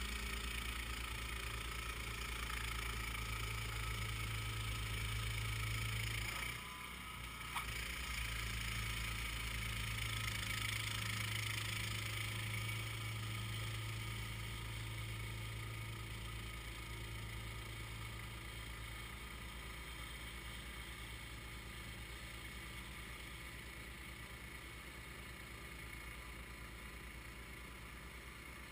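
Distant Honda HS1132 track-drive snowblower engine running steadily while throwing snow. It dips briefly about a quarter of the way in, then comes back, and grows gradually fainter over the second half as the machine moves away.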